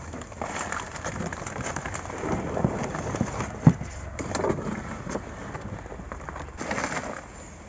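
Large lotus leaves and stalks rustling and crackling as someone pushes through a dense lotus pond gathering seed pods, with one sharp crack a little past halfway.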